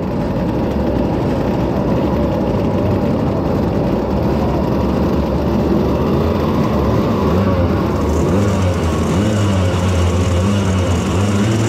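Small two-stroke moped engine running as the moped rides slowly over grass, then settling into a steady idle in the last few seconds.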